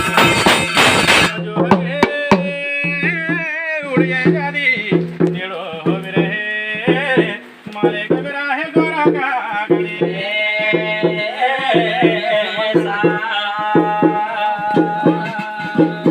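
Garhwali jagar folk music: a dense, loud passage breaks off about a second in, then a hand drum beats a steady rhythm under a wavering melodic line.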